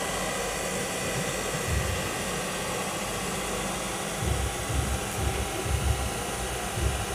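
Steady background hiss with no speech, and soft low thumps that come more often from about four seconds in.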